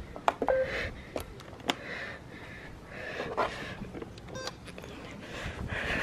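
Robot vacuums being switched on: a few sharp button clicks in the first two seconds, a short beep about half a second in and another brief beep near the end, over soft rustling.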